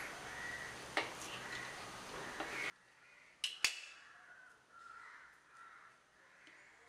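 Quiet room tone with two sharp clicks in quick succession about halfway through, and faint bird calls in the background.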